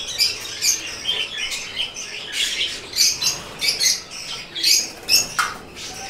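Budgerigars chattering in rapid, irregular short high chirps and squeaks, with a single sharp knock about five seconds in.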